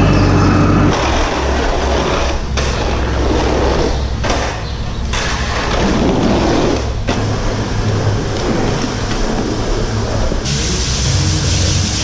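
Skid-steer loader's engine running steadily while its bucket scrapes manure along the concrete alley, the scraping noise rising and falling. About ten seconds in the sound changes abruptly to the steady hiss of a hose spraying water onto the floor.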